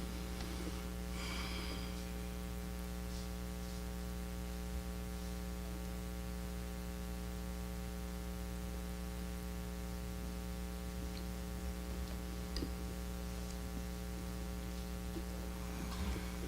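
Steady electrical mains hum with its many overtones, held unchanged throughout, with a few faint ticks and a brief faint rustle about a second in.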